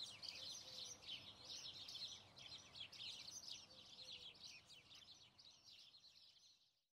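Faint birdsong: rapid, high chirping that continues steadily and fades out near the end.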